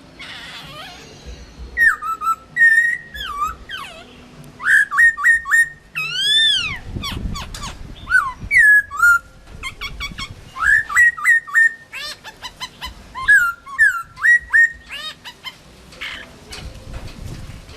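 Chinese hwamei singing: loud, clear whistled phrases of quickly repeated and slurred notes, one after another with short pauses, including a long rising-and-falling slur about six seconds in.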